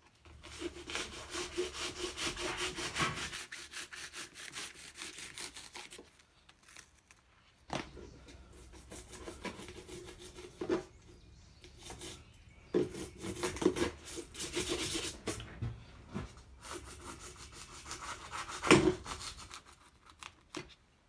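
A serrated knife sawing back and forth through cured expanding spray foam filling cracks in a truck dash. The quick scraping strokes come in several spells with short pauses between them.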